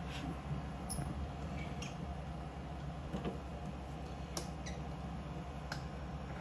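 Metal lathe running with the cutting tool taking a light cut on a steel bar held in a four-jaw chuck: a steady motor hum with scattered sharp ticks.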